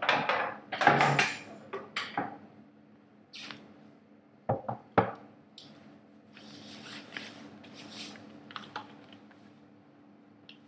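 Clattering and rustling as things are moved about on a tiled floor: a loud jumble of handling at first, two sharp knocks about halfway through, then softer rustling of a nylon sleeping bag. Under it runs a steady low hum of refrigerators and a freezer.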